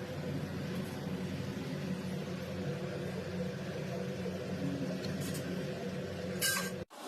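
A steady machine hum with several steady low tones. A short hiss comes near the end, and then the sound cuts off abruptly.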